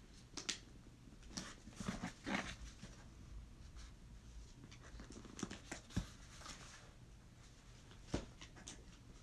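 Faint rustling and handling noises with scattered short clicks, as a mailer package is worked at by hand to get it open without scissors.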